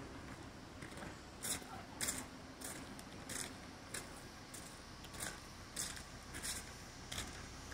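Footsteps crunching on gravelly, icy pavement at a steady walking pace, about one crisp step every two-thirds of a second.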